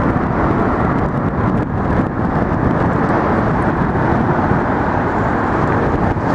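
Steady, loud rumble of traffic crossing the Manhattan Bridge, an even noise with no distinct pauses or pitched sounds.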